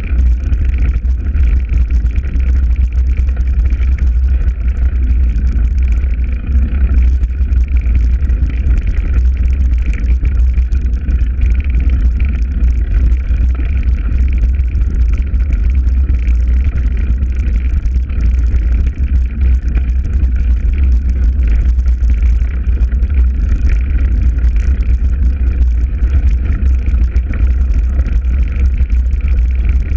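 Breeze buffeting the microphone: a loud, steady low rumble with a fainter high hiss over it.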